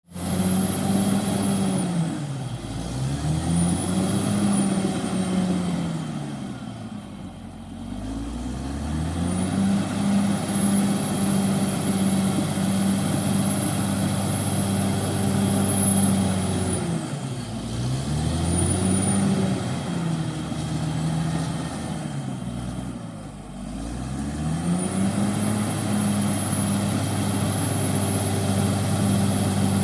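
Caterpillar D6R XL bulldozer's diesel engine running at working speed with a thin high whine over it. Four times its pitch and loudness sag and then climb back.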